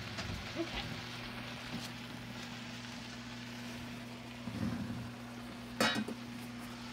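Steady low hum with a faint hiss in a kitchen, broken by a short clatter about four and a half seconds in and a sharp knock about a second later as the phone is moved.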